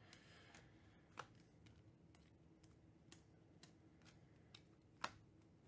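Near silence with faint clicks and taps of trading cards being handled and flipped, two sharper taps about a second in and near the end.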